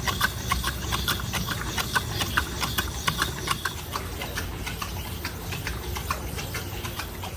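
Sow drinking water, a quick run of short wet clicks and slurps, about four or five a second, thinning out about halfway through, over a steady low hum.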